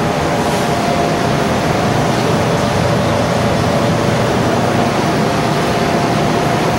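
Steady rushing air noise of a commercial kitchen's ventilation, with a faint steady hum running through it.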